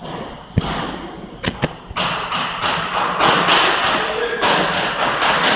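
A few sharp knocks, then about three and a half seconds of dense, rapid clattering and scraping from objects being handled.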